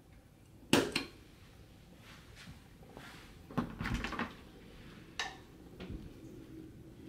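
Sharp double click of a wall rocker light switch being pressed, followed about three seconds later by the rattle and knock of a lever door handle being worked and a door opening, with the latch clicking twice afterwards.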